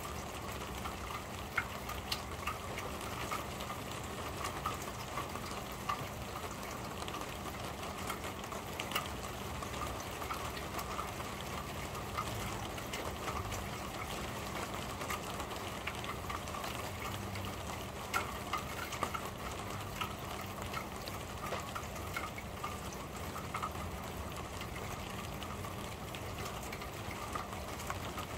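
Steady rain on a corrugated roof: an even hiss of rainfall with scattered louder drips ticking on the sheeting.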